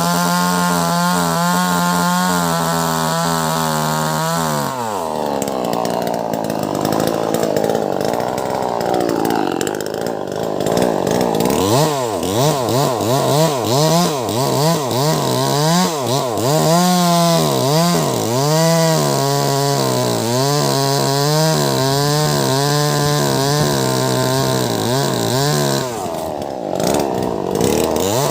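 A Wagner 580 two-stroke chainsaw with a 16-inch bar cutting into a log about 70 cm across. It runs at a steady high pitch at first. About four seconds in, the pitch drops sharply as the chain bites into the wood under load. Later the engine note rises and falls over and over as the cut goes on, and it returns to full speed just before the end.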